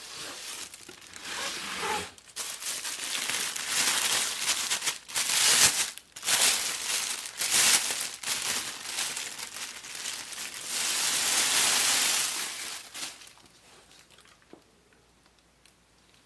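Packaging crinkling and rustling in irregular surges as fan parts are unwrapped, dying away about 13 seconds in.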